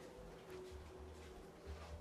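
Faint rumbling and brushing of a phone being handled and moved about, over a low steady hum.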